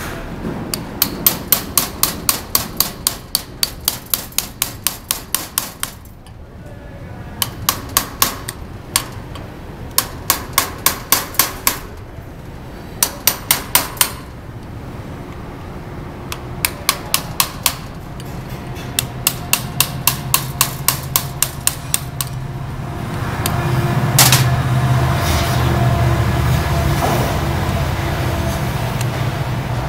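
A hammer tapping a brass punch against a CV joint's cage and ball bearings, in several quick runs of light metallic strikes about three to four a second, driving the bearings out of the outboard joint one by one. Near the end a louder, steady mechanical noise with a low hum and a few metal clinks takes over.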